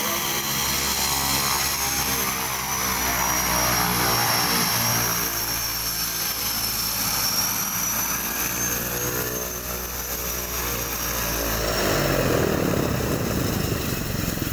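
Turbo Thrush crop-spraying plane's turboprop engine running as it taxis past at close range: a steady high turbine whine over the propeller's drone. A louder rush of air comes in near the end.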